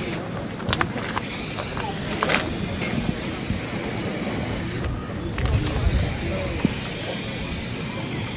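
A steady hiss with a few faint short clicks; the upper part of the hiss drops away briefly twice.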